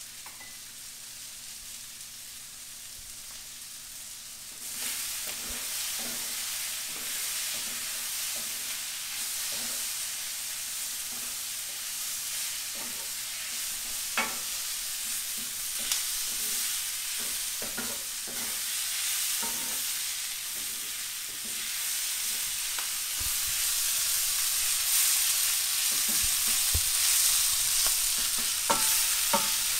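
Sliced bell peppers and onions sizzling as they caramelize in a cast-iron skillet, stirred with a wooden spoon that knocks against the pan now and then. The sizzle gets louder about five seconds in and again in the last third.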